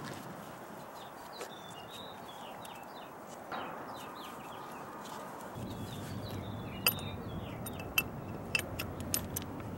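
Small birds chirping over steady outdoor background noise. Just past halfway a low rumble comes in, and in the last three seconds a worker's hands on the metal hose fitting of a piercing tool give several sharp metallic clicks.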